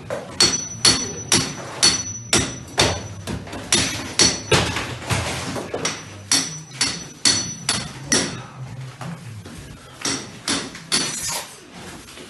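Repeated hammer blows, about two a second, some with a high metallic ring, growing weaker in the second half.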